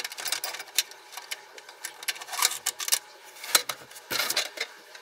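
Hands sorting through a plastic drill bit case, the steel bits clicking and rattling against the case in irregular clicks and clatters.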